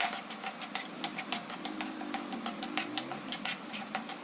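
Spoon stirring and scraping semolina as it roasts in ghee in a pan, clicking against the pan several times a second.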